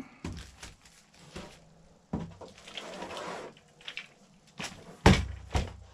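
Wooden model-kit parts being handled on a workbench: a bundle of wooden strips set down and a clear plastic pack of fittings moved about, giving crinkling plastic and several knocks, the loudest about five seconds in.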